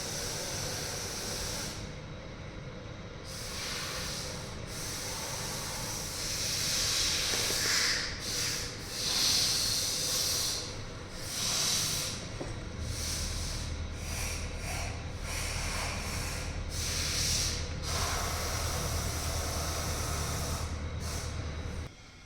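Hissing in irregular bursts of varying length, like air or spray being released during work on the injectors. A steady low hum joins about halfway through and cuts off suddenly near the end.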